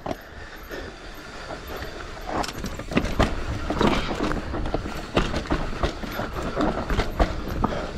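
Mountain bike descending a rough dirt forest trail: tyres on dirt with the bike rattling and clattering, lots of sharp knocks over bumps, getting busier and louder from about two seconds in.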